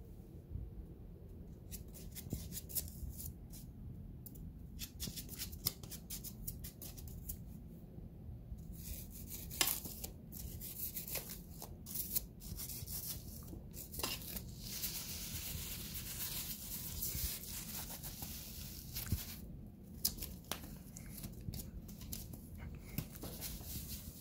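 Scratchy rustling and light scraping of a goose feather swished over carpet and the carpeted base of a cat-tree scratching post, in short irregular strokes that grow busier and louder about nine seconds in.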